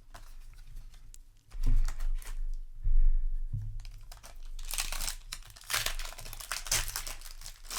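A few low bumps of cards and packs being handled, then, from about halfway, the foil wrapper of a trading-card booster pack crinkling and tearing as it is opened.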